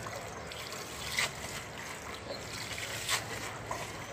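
Shallow river water sloshing as a cast net is gathered and pulled up through it, with two sharper splashes, one about a second in and one about three seconds in.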